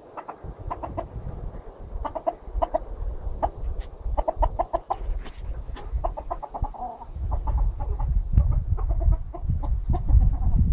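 Chickens clucking: short clucks in quick runs of several at a time, over a low rumble that grows heavier about two-thirds of the way through.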